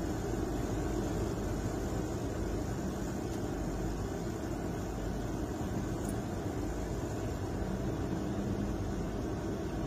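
Steady, even low vehicle rumble heard from inside a car's cabin while it stands still.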